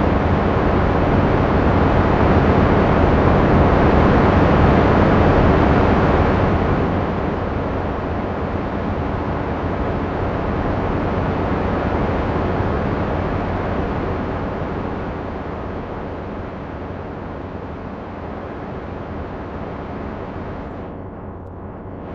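AI-generated Martian windstorm sound: a steady rushing wind noise, loudest for the first six seconds or so, then dropping and slowly fading.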